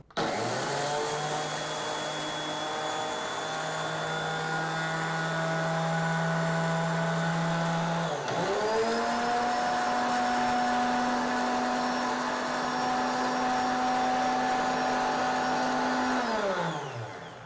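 OmniBlend high-speed blender motor grinding dry unhulled sesame seeds into a meal. It runs at a steady pitch, dips for a moment about halfway through and climbs to a higher speed, then winds down near the end as it is switched off.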